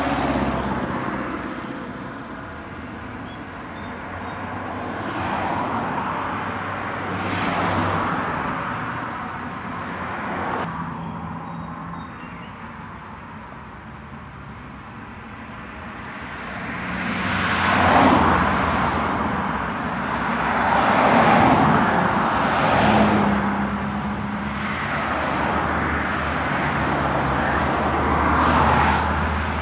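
Motor vehicles passing one after another over a steady low engine hum, each pass swelling up and fading over a few seconds.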